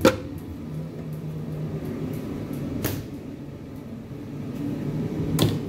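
Stainless-steel kitchen cabinet and the containers in it being handled: three sharp knocks, one at the start, another about three seconds in and a third near the end, over a low steady hum.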